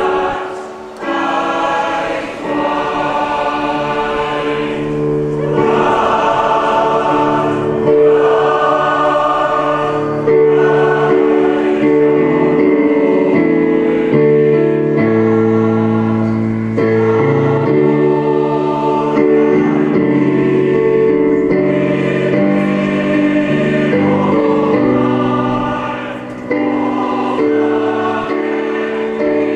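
Choir singing a national anthem in slow, held chords, with short breaths between phrases.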